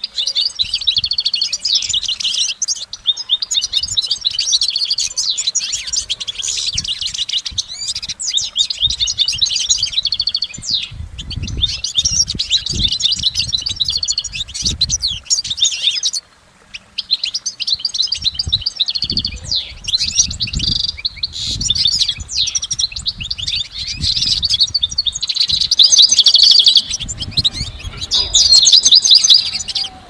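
European goldfinch singing: a long, rapid, twittering song that runs on with hardly a pause, breaking off once for under a second just past halfway.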